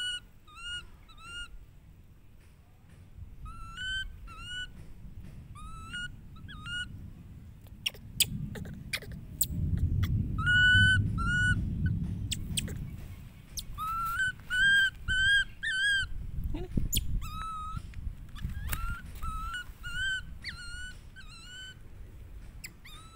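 Baby macaque giving repeated short, high-pitched calls that rise and fall, in runs of two to five, as if calling for its mother. Low rustling underneath is loudest about halfway through.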